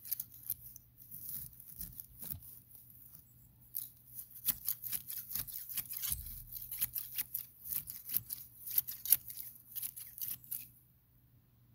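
Long-handled hedge shears snipping through grass and weeds: a run of sharp blade clicks and swishes, sparse at first, then quick and steady at several cuts a second. The cutting stops shortly before the end.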